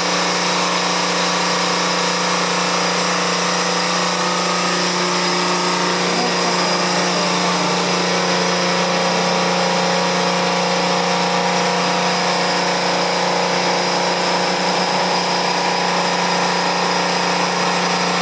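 Ampac SW4500-LX seawater reverse-osmosis watermaker in full operation: its feed pump and variable-frequency-driven high-pressure RO pump run with a steady, unchanging hum and hiss, at a noise level not beyond 72 decibels.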